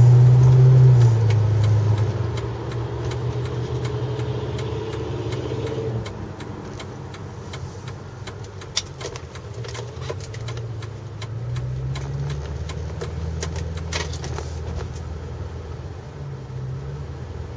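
2004 Pontiac GTO's 5.7-litre V8 running. It is loudest in the first second or two, then settles; the engine note drops about six seconds in and rises again around twelve seconds, with scattered light clicks.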